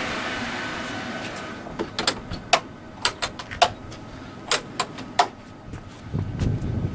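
A steady whirring hum fades away, then about a dozen sharp, irregular clicks and taps.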